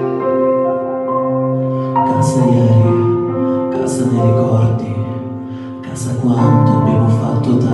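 A man singing a slow song into a handheld microphone over a musical accompaniment, drawing out long held notes.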